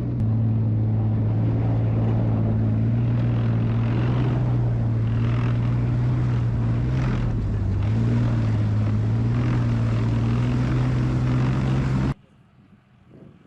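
Leopard tank's diesel engine running, a loud steady low drone that wavers slightly in pitch. It cuts off abruptly about twelve seconds in.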